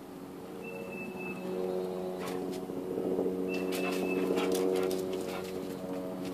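Bumblebee buzzing close by: a steady low drone that grows louder from about three seconds in, with a few sharp clicks in the middle.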